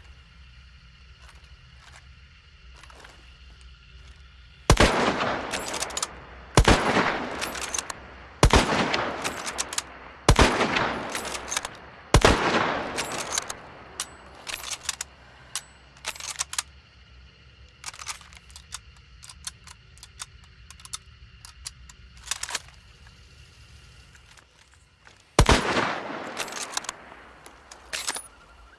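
Mosin-Nagant bolt-action rifle in 7.62×54mmR firing: five loud shots about two seconds apart, each followed by a long rolling echo, then one more shot near the end. Fainter clicks and knocks come between the shots.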